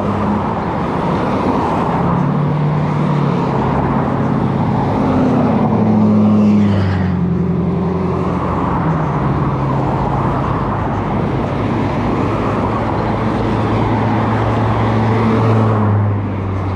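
A car driving: steady engine hum and tyre noise on the road, the engine note shifting up and down with speed and settling into a lower, steady hum in the second half.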